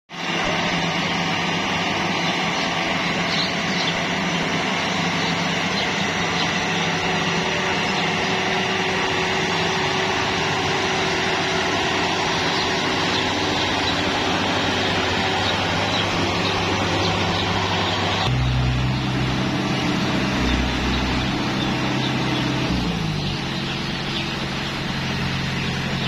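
Yanmar YH700 crawler combine harvester running steadily, its diesel engine and threshing machinery working while it harvests rice in a flooded paddy. The sound turns deeper and heavier about two-thirds of the way through.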